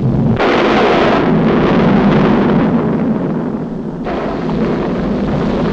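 Cartoon sound effect of a volcano erupting: a loud, continuous rumbling blast, with a sudden surge about half a second in and another about four seconds in.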